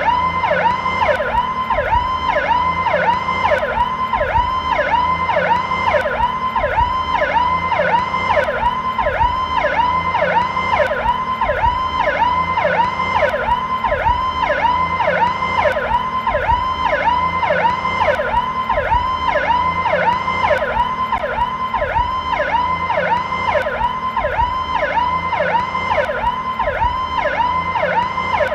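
Police siren on its Powercall tone in a slowed version, a continuous cycle of quick up-and-down pitch sweeps repeating about twice a second.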